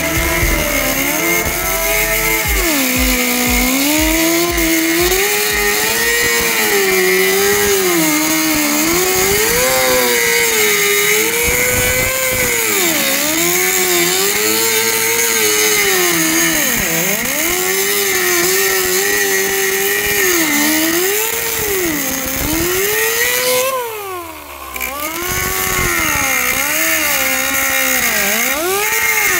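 Power cutting tool running continuously as it cuts through the steel outer sill panel of a car body. Its motor pitch keeps sagging and recovering as it is pushed into the metal, and it eases off briefly near the end before picking up again.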